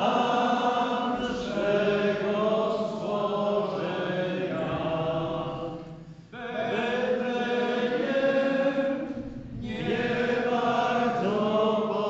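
A group of people singing together slowly in unison, with long held phrases and short breaks between them.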